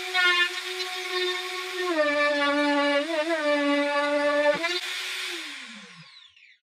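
Makita M3600 plunge router running at full speed, cutting through plywood, with a steady high whine that dips in pitch briefly a few times under load. About two-thirds of the way through it is switched off and winds down, the whine falling in pitch until it fades out.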